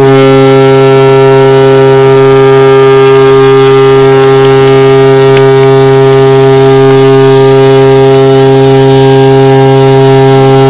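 Ship's horn sounding one long, loud, steady low blast.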